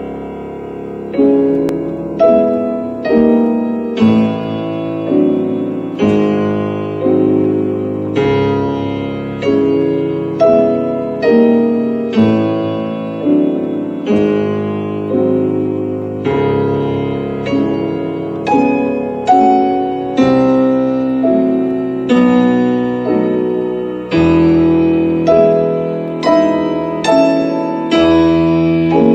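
Piano playing a slow run of chords, one struck about every second, each ringing and dying away before the next.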